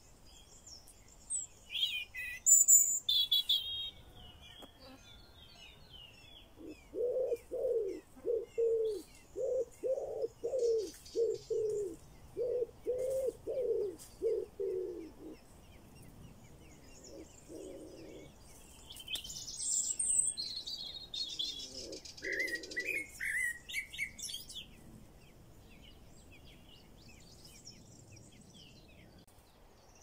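High, thin begging chirps of Eurasian blackbird nestlings in short bursts, near the start and again around twenty seconds in. Between them, from about seven to fifteen seconds, a lower call repeats steadily about twice a second.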